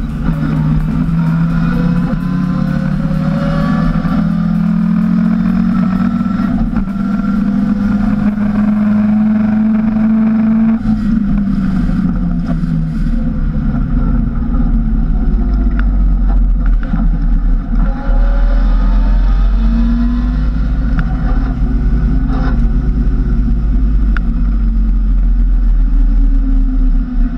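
Lotus Cortina's Lotus-Ford twin-cam four-cylinder racing engine, heard from inside the cabin at racing speed. The engine pitch climbs through the revs, drops sharply about eleven seconds in, then climbs again, with road and wind noise underneath.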